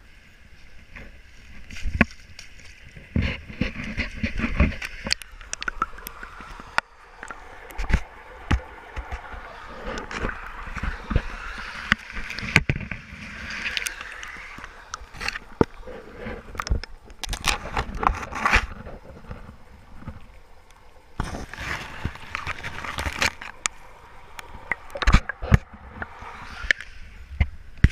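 Handling noise from a covered action camera: fabric rubbing and scraping over the microphone, with irregular knocks and clatters throughout.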